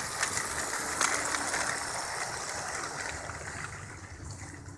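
Motorised LEGO train, driven by 9V LEGO train motors, rolling past close by: a steady rushing clatter of wheels on plastic track with sharp clicks, loudest as it passes and fading over the last couple of seconds.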